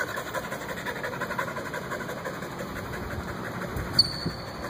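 A steady mechanical hum in the room, with a single sharp click and a brief high ring about four seconds in.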